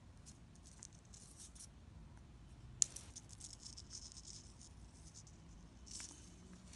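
Faint scratching and rustling of monofilament fishing line and steel hooks handled between fingers, with one sharp click a little under three seconds in and a short scrape about six seconds in.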